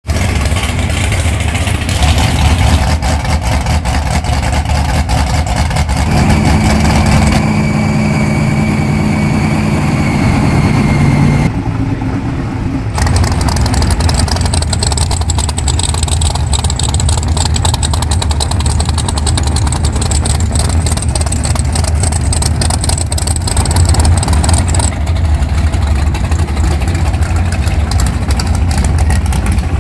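Big V8 drag-race engines running loudly at idle and low revs, in several short clips joined one after another, so the sound changes abruptly every few seconds.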